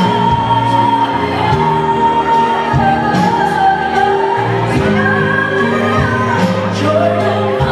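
A woman singing a pop ballad live into a microphone with a band, holding long belted notes over bass, keyboard and drums.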